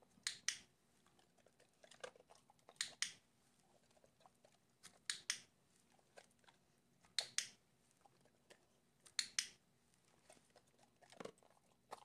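Sharp plastic double clicks, each pair about two seconds apart, from clicker training of a dog to press a doorbell button, with faint sounds of the dog taking and eating treats in between.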